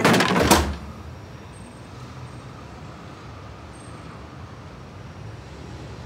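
A loud crash in the first half second, then a steady low rumble of street traffic.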